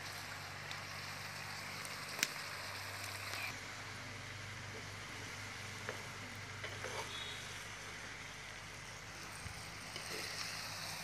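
A steel ladle against a clay cooking pot: one sharp tap about two seconds in, then a few light clicks and scrapes as chopped mango is stirred in the pot, over a steady low hum.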